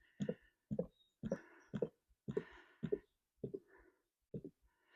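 Motor oil pouring from a jug into the engine's fill opening, glugging in a steady rhythm of about two glugs a second as air gulps back into the jug.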